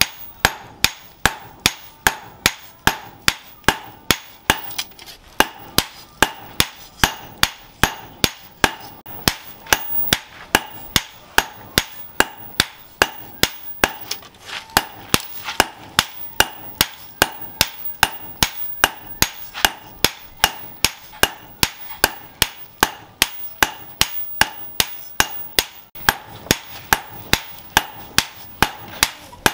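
Two hand hammers striking a red-hot machete blade on a steel post anvil in a steady, even rhythm, about two to three blows a second, with a metallic ring. The blade is being hot-forged into shape.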